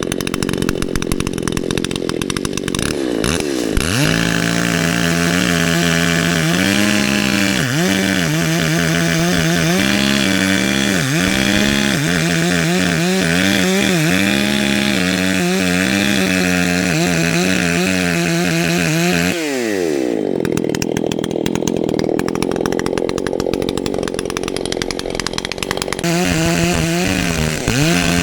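Two-stroke chainsaw at full throttle, its pitch dipping again and again as the new chain bites into pine wood. About two-thirds through the revs drop away with a falling pitch, and near the end it revs up again.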